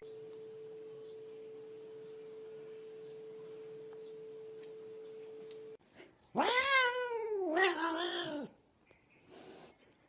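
A faint steady hum, then about six seconds in a domestic cat gives a long, drawn-out yowl of about two seconds that rises, falls and wavers in pitch, with a short quiet sound near the end.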